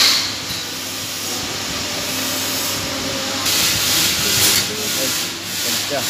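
TIG welding torch tack-welding small stainless steel parts: a steady hiss, with a louder burst of arc hiss lasting about a second, starting about three and a half seconds in.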